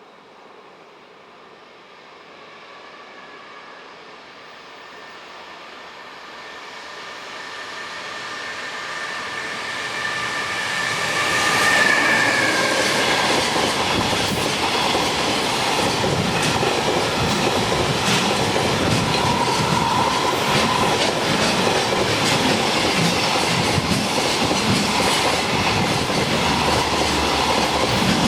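Freight train approaching and passing close by, growing steadily louder over about twelve seconds with a faint whine, then a long run of wagons clattering rhythmically over the rail joints.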